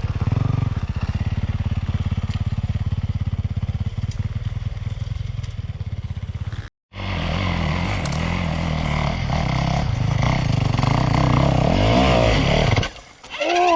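Yamaha YZ450F single-cylinder four-stroke dirt-bike engine under throttle on a hill climb, running steadily. It breaks off sharply for an instant about seven seconds in, then comes back louder with revs rising and falling, and drops away near the end.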